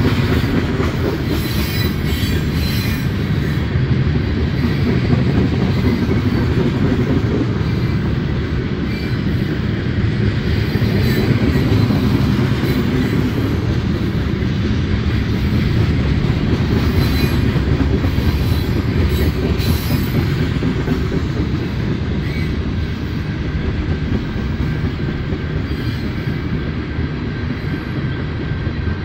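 Tank cars of a mixed freight train rolling past, a steady heavy rumble of steel wheels on rail.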